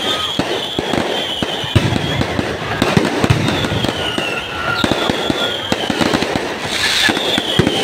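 Fireworks going off in a dense run of bangs and crackles, with several high whistles that fall slightly in pitch.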